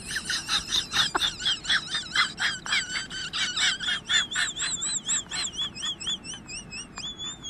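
A rapid run of high, bird-like chirps, about four a second, that turns into a wavering warble about halfway through and ends on a short steady note.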